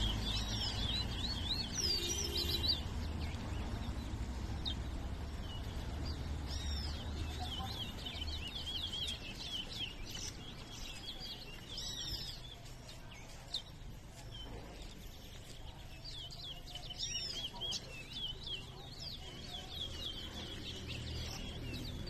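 Caged towa-towas (chestnut-bellied seed finches) singing against each other in a song race: rapid runs of high, quick chirps and warbled notes with a short lull in the middle. A steady low rumble sits underneath.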